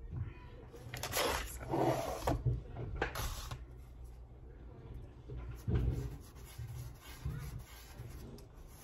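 Rustling and handling noises as a canvas painting and the paper around it are shifted on a cutting mat, with a few loud rustles in the first few seconds and a dull knock about six seconds in.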